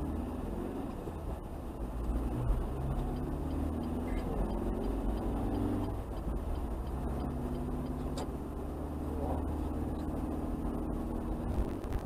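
Car engine and road noise heard from inside the cabin while driving. The engine note holds steady, dips about six seconds in, then picks up again.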